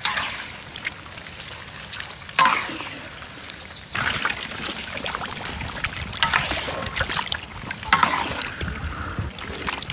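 Egg frying in hot oil: a steady sizzle with sudden louder surges of crackling about two and a half, four and eight seconds in.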